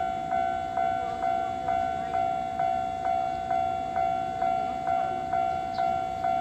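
Japanese level-crossing alarm bell ringing, its electronic 'kan-kan' tone struck about twice a second in a steady, even rhythm.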